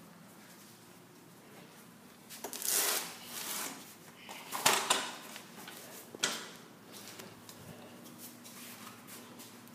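Handling noise: a few short rustles and clatters between about two and six seconds in, with faint room tone before and after, as a child's toy go-kart is handled and moved.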